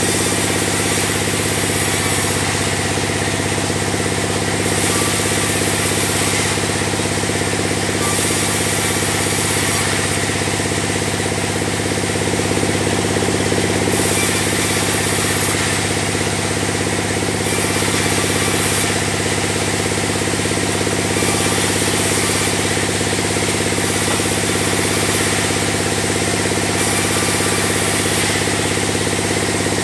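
Sawmill band saw running steadily with a low machine hum while sawing a log into beams. A high hiss comes and goes every second or two.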